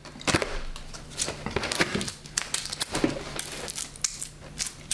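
Paper strips and tape being peeled and torn off a poster board, a run of irregular crinkling and crackling.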